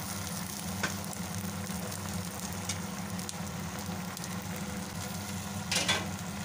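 Broth simmering and sizzling in a wok under a layer of fresh spinach leaves, a steady hiss over a low hum, with a couple of light clicks, the louder one near the end.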